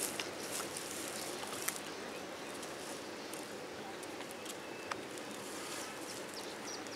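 Quiet outdoor background: a steady, even hiss, with two faint clicks, one near two seconds in and one about five seconds in.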